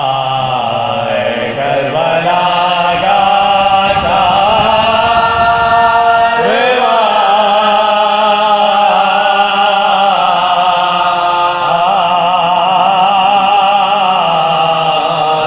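Soz, a Shia mourning lament, chanted by a man's voice in long, drawn-out notes with a wavering pitch.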